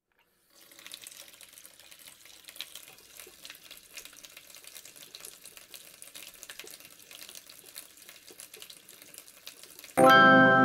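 A thin stream of water trickling from a drinking straw onto a small toy paddle wheel inside a plastic bottle, a faint steady splashing with many small ticks and drips. Music starts suddenly near the end.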